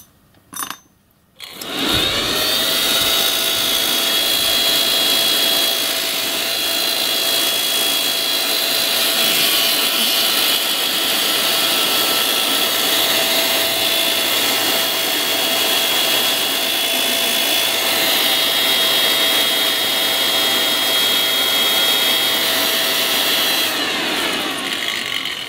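Small 12 V electric motor driving the impeller of a home-made steam-raising blower, switched on about a second and a half in: it spins up quickly, then runs at a steady high whine with a rush of air. Near the end it is switched off and winds down to a stop.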